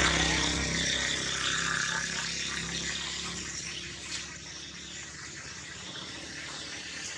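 A motor vehicle engine runs with a steady low hum that grows gradually fainter, as if it is moving away, over a steady high hiss.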